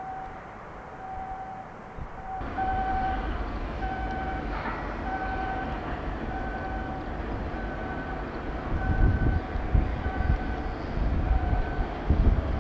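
An electronic warning beeper sounds a steady repeated two-tone beep, a little under once a second. It plays over the continuous low rumble of shipyard machinery, which gets louder about two seconds in and surges in gusts near the end.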